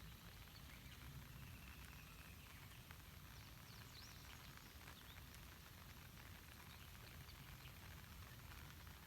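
Faint, steady patter of light rain falling on a lake, with scattered soft drips. A faint bird chirps briefly about four seconds in.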